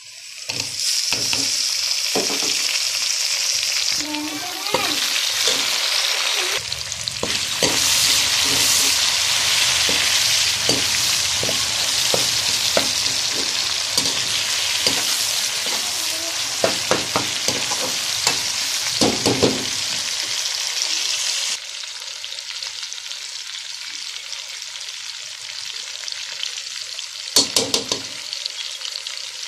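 Sliced onions, tomato and green chillies frying in hot oil in a metal pan. A loud, steady sizzle starts suddenly about half a second in and drops to a lower level about two-thirds of the way through. A spoon clinks and scrapes against the pan a few times, most sharply near the end.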